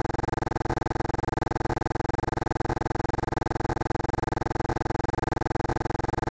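A steady buzzing electronic tone made of many fixed pitches, pulsing rapidly and evenly.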